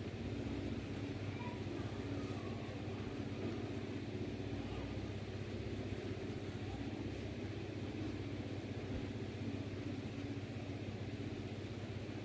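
A steady low mechanical hum, like an idling engine, holding an even level throughout.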